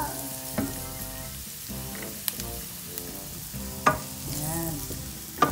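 Chopped garlic and onion sizzling as they sauté in oil in a stainless steel pan, with a couple of sharp knocks of a wooden spoon against the pan.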